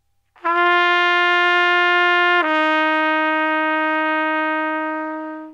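Red plastic pTrumpet sounding one sustained note. About two seconds in it steps down to a slightly lower note as a valve is pressed, sending the air through a longer piece of tubing. The lower note is held, fading a little before it stops.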